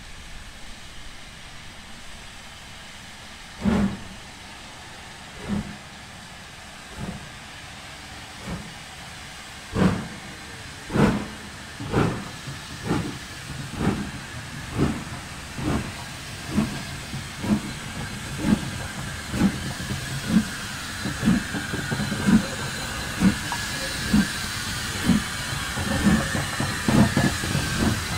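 Two double-headed LMS Black 5 two-cylinder 4-6-0 steam locomotives starting away under load. Exhaust chuffs begin about four seconds in, slow and widely spaced, and quicken to about one a second and closer still near the end. Under them is a steady hiss of steam from the open cylinder drain cocks.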